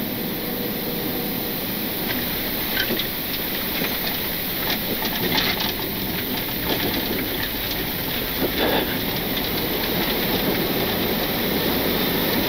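Embraer E-190 touching down and rolling out on a wet runway: a steady rumble of tyres, engines and airflow, with a few scattered knocks and clicks, growing slightly louder toward the end.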